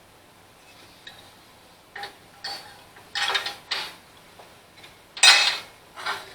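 Metal clanking and clinking as a steel fuel-tank bracket and its bolts are handled and set across the lawn tractor's frame: about six short clatters, the loudest about five seconds in.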